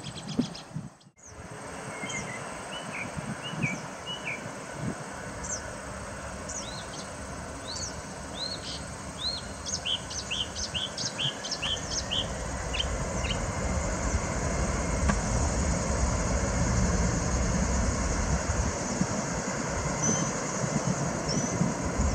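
Distant jet engines of a Boeing 767 freighter on its takeoff roll: a steady rumble and hiss that grows louder. A small bird chirps rapidly over it for several seconds in the first half.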